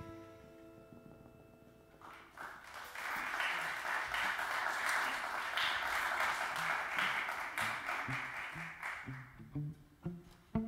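Audience applauding after a song, once the band's last notes have faded. Near the end, low plucked notes begin the next tune.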